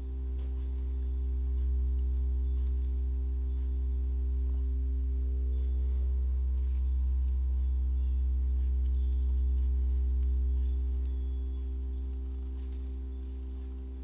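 A deep, steady drone tone with a few steady higher overtones, from ambient background music, swelling in and fading away over the last few seconds. Faint scattered clicks sit underneath.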